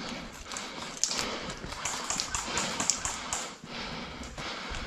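Footsteps with rustling and brushing of leafy undergrowth and clothing as a person walks through dense vegetation: a run of irregular taps and crackly swishes, busiest in the middle.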